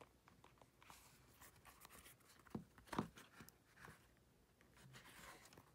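Faint rustling and light clicks of hand-stitching leather: a needle and waxed thread pulled through pre-punched holes, with one sharper tick about three seconds in.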